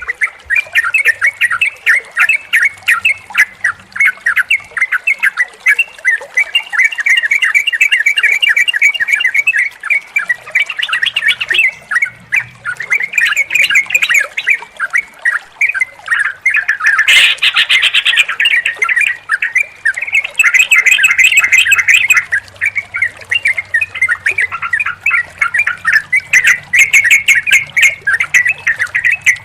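Yellow-vented bulbuls (trucukan) calling in a dense, rapid chatter of bubbly notes, several birds overlapping, with a louder burst about two-thirds of the way through.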